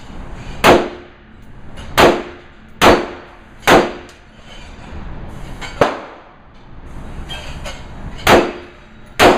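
Sig Sauer 556 Classic rifle in 5.56 NATO firing frangible rounds in slow single shots, six loud cracks at uneven intervals, each with a short echo. A shorter, sharper crack comes about six seconds in.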